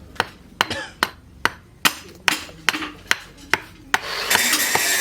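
A hammer strikes metal at an even pace, about two and a half blows a second, in the way of hand forging at an anvil. About four seconds in, a louder, steady, harsh noise takes over.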